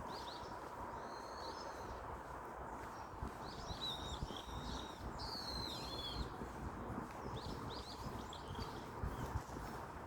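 Small birds chirping and singing in short, high twittering phrases, several times, over a steady low outdoor background noise.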